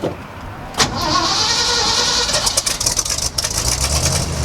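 V8 dump truck engine, fitted with new glasspack mufflers, cranked on the starter from about a second in with a whining hiss. It catches near the end and runs with a low exhaust rumble.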